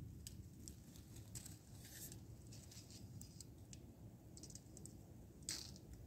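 Faint scratching and light ticking from hand work on a log's cut end, with one sharper scrape a little before the end, over a low steady outdoor background; the chainsaw is silent.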